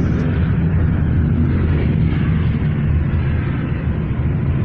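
Steady low rumble of missiles in flight, heard from the ground as they come in.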